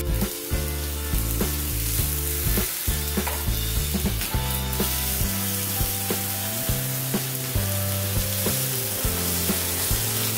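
Chicken fillets frying in coconut oil in a nonstick pan, sizzling steadily, while a spatula scrapes the pan and turns them.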